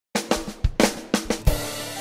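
Drum fill in an intro music sting: a quick run of kick, snare and cymbal hits, ending on a heavier hit about one and a half seconds in that rings on.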